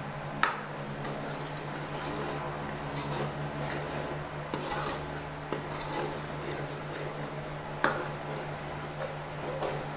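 Metal ladle stirring and scraping around an aluminium karahi as chilli powder and onion paste fry in oil, with two sharp knocks of the ladle against the pan, one about half a second in and one near the end.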